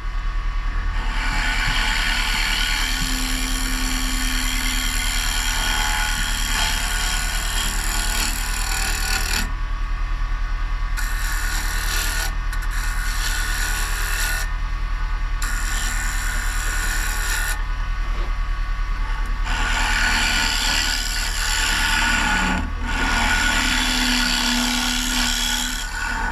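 Wood lathe running with a steady motor hum while something is held against the spinning maple bowl: a continuous rasping rub of wood being worked that breaks off briefly three times around the middle and then resumes.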